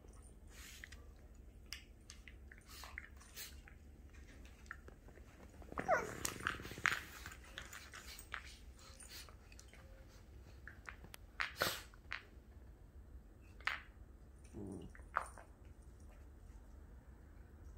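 A dog and a kitten play-fighting: scattered scuffles and sharp clicks, with short animal vocal sounds. About six seconds in there is a brief falling whine, and near fifteen seconds a short low growl-like sound.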